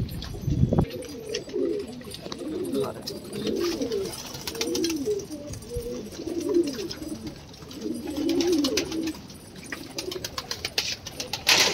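Several domestic pigeons cooing over one another in repeated low warbling calls, with light clicks of beaks pecking grit off a tray.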